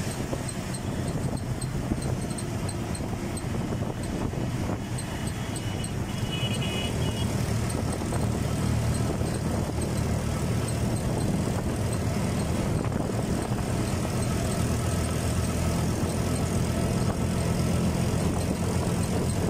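Road traffic heard from a moving vehicle: a steady low engine drone that grows a little louder partway through. There is faint regular ticking in the first half, and a brief high-pitched tone, like a horn, about six seconds in.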